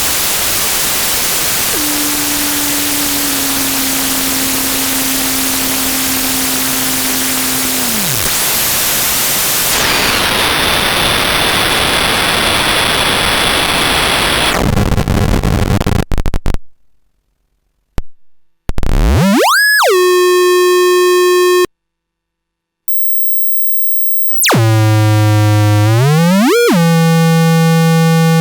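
PARATEK "Космический шум" eurorack module, a Jupiter Storm-style bank of square-wave oscillators, making synthetic space noise. First comes dense static hiss with a low tone that falls away and thin high whistles. Then it cuts out to silence and clicks, broken twice by a buzzing square-wave tone that sweeps up and then holds steady.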